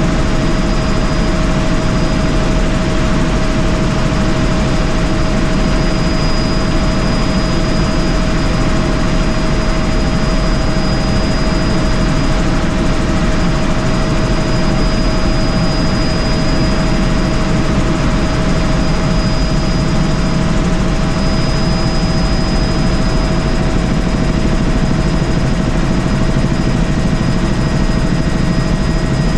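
Helicopter in flight, heard from inside the cabin: a steady, loud rumble of rotor and engine with a constant whine held at one pitch.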